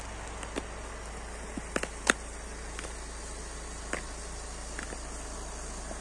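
Stiletto heels of patent leather platform boots clicking on asphalt: a handful of sharp, unevenly spaced heel strikes in slow steps, over a steady background hiss.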